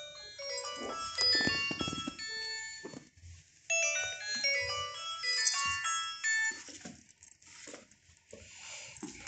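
A bright, chime-like electronic melody of quick short notes, played as two phrases, the second starting about four seconds in. After it come a few scattered clicks and knocks.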